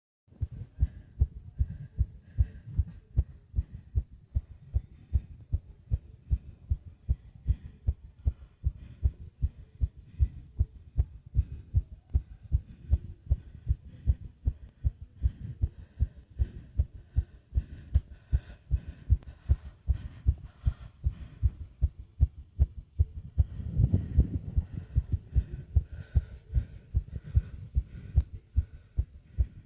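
Fast heartbeat: a steady run of low, dull thumps in quick succession, with heavy breathing faintly behind it. The sound swells louder about 24 seconds in.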